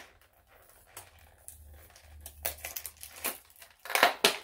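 Crinkly white wrapping crackling and rustling as hands pull it off a toy doll, in scattered bursts that are loudest about four seconds in.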